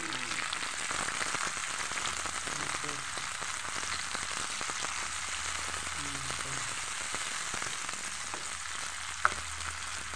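Chopped tomatoes, bell peppers and red onions sizzling in hot oil in a nonstick frying pan, stirred with a plastic spatula. There is a steady crackling hiss throughout, and a single sharp click about nine seconds in.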